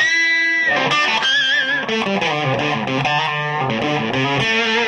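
Electric Stratocaster played through a Victoria VIC105 EL84 valve amplifier turned up near full treble and volume, running a blues-rock lead lick with bent notes; a note is held with vibrato about a second and a half in.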